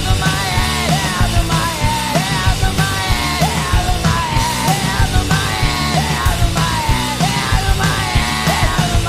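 Loud punk-grunge rock band playing an instrumental stretch: driving drums and bass under a lead line of notes that bend up and down.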